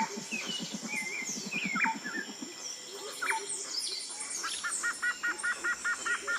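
A chorus of birds chirping and calling. A low, rapid pulsing trill runs under it for the first few seconds, and a fast, evenly repeated two-note call sets in about two-thirds of the way through.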